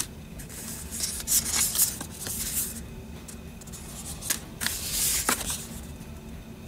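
Thick cardboard art cards being slid, shuffled and laid against one another: a string of short dry swishes and light clicks, in two clusters about two seconds apart.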